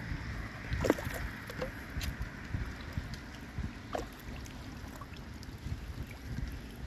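Floodwater sloshing and gurgling as a stick is worked into a clogged storm drain, with a few short plinks and gurgles about one, two and four seconds in. A low wind rumble on the microphone runs underneath.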